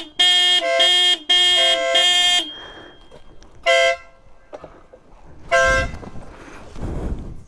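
BMW GS Adventure motorcycle horn honked in a quick run of blasts, shifting between two pitches, over the first two seconds or so, then two more short toots about four and six seconds in. It is sounded to signal companions who have ridden out of sight. A motorcycle engine runs low underneath near the end.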